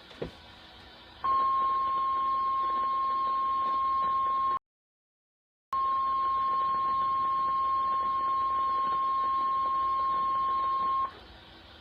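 NOAA Weather Radio 1050 Hz warning alarm tone: one steady, loud, high single tone over faint radio hiss. It starts about a second in, drops out into a second of dead silence midway, resumes, and stops about a second before the end. The tone is the signal that a warning broadcast follows.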